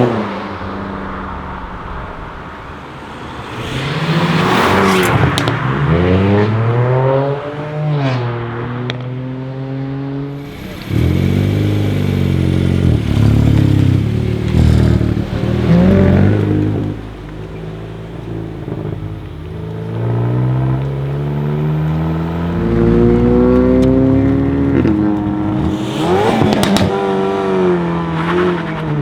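Hyundai i30 N's turbocharged 2.0-litre four-cylinder revved and accelerated several times, the engine pitch climbing and dropping back, with sharp exhaust crackles and pops between the pulls.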